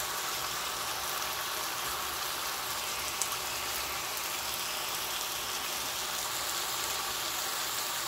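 Sundae and vegetable stir-fry sizzling steadily in a wok, with a single faint pop about three seconds in.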